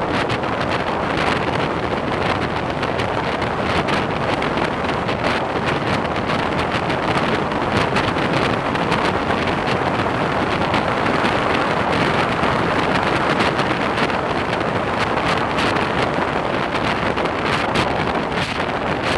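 Wind rushing over the microphone of a camera on a moving motorcycle at road speed: a steady, dense rush with rapid buffeting that buries the engine and tyre noise.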